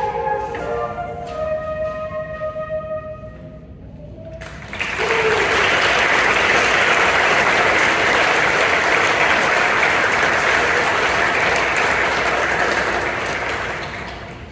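Student flute section playing the last held notes of a tune, which fade out about four seconds in; about five seconds in, the audience breaks into applause that lasts about nine seconds and tapers off near the end.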